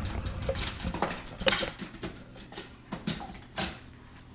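Metal kitchen utensils clinking and clattering in a drawer as a hand rummages through them, with scattered clinks that grow fewer and quieter near the end.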